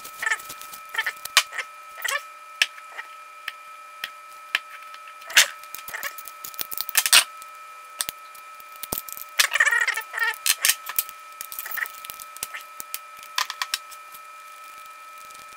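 Handling noises at a workbench: masking tape rustling as it comes off a steel knife blank. Wooden handle scales and the blade click and clack as they are fitted together on pins and set down on the bench, in scattered sharp taps and short rustles. A steady high-pitched tone runs underneath.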